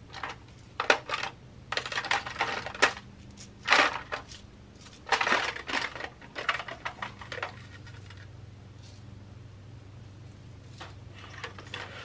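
Small metal spacer beads clinking and rattling against each other, in irregular bursts of jingling for most of the first seven seconds, then a few more light clinks near the end.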